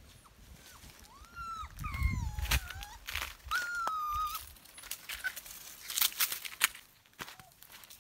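An animal's high whining calls, several short whimpers that rise and fall and one held for about a second near the middle, among a few sharp clicks and knocks and a dull thump about two seconds in.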